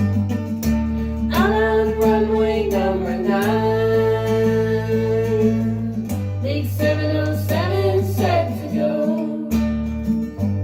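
Music: a voice singing over strummed acoustic guitar, with steady bass notes that change every couple of seconds.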